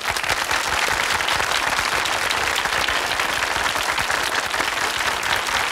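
Studio audience applauding steadily, many hands clapping at once.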